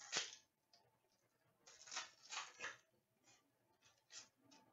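Faint rustling and sliding of hockey trading cards being handled, a handful of short scrapes with the largest about two to three seconds in.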